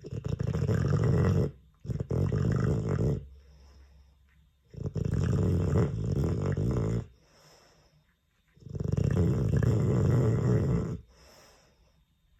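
Dogue de Bordeaux snoring in its sleep: four long snores, each one to two and a half seconds, with short quiet pauses between them.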